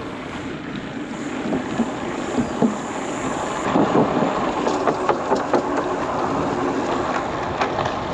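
Wind rushing over the microphone of a moving bicycle, with tyre and ride noise. A run of sharp clicks and rattles starts about halfway through.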